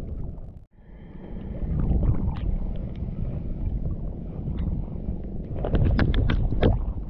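Wind rumbling on the microphone over choppy sea water, with a quick run of sharp ticks near the end.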